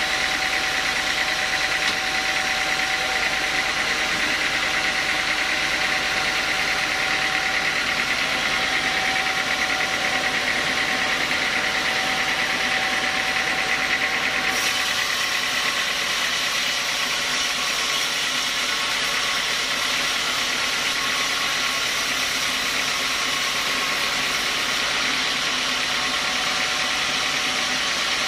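Machine-driven band sawmill running while its blade cuts lengthwise through a large log: a steady mechanical hum with a high, even tone. The sound changes abruptly about halfway through.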